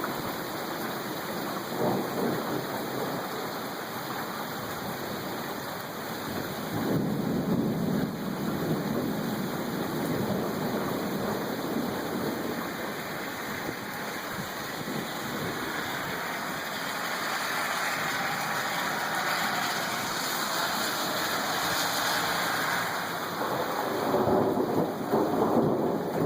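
Heavy rain pouring steadily during a severe thunderstorm, with thunder rumbling low underneath and swelling a few times: about two seconds in, around seven to nine seconds in, and again near the end.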